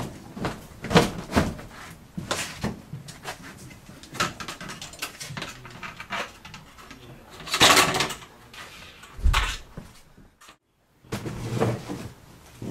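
Irregular knocks, clatters and rustling from a blower door fan's plastic ring and cover being handled and fitted while the fan is not yet running, with a longer, louder rustle about eight seconds in and a heavy thump just after. A brief total dropout to silence comes near the end.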